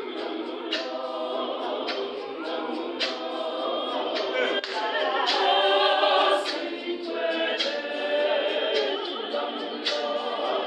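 Choir singing a cappella, with sharp hand claps about once a second.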